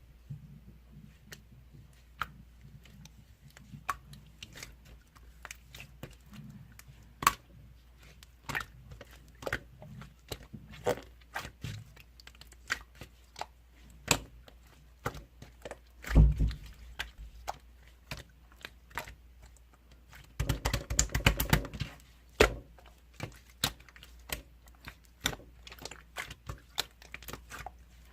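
Clear slime with small topping parts being squished and pressed by hand, giving irregular sharp clicks and little pops of trapped air. A loud squelch comes just past the middle, and a fast run of pops about three-quarters through.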